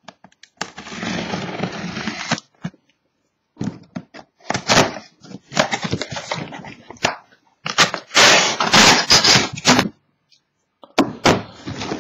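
Cardboard being handled as a sealed case of trading card boxes is opened: scraping, rubbing and sliding in several bursts, with sharp knocks and clicks between them.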